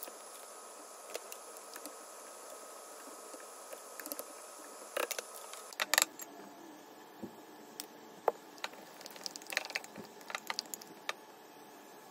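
Steady hiss of a simmering pot on a gas burner. After a cut about six seconds in, a spoon clinks and scrapes against a small glass bowl in scattered taps.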